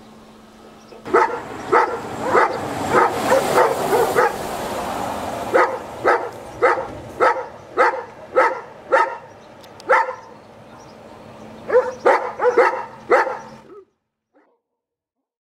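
A dog barking repeatedly, about twenty barks a second or less apart, with a rushing noise under the early barks. The sound cuts off abruptly near the end.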